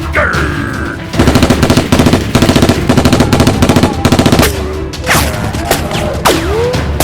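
Rapid automatic gunfire in several loud bursts lasting about three and a half seconds, over background music. Swooping pitch glides follow near the end.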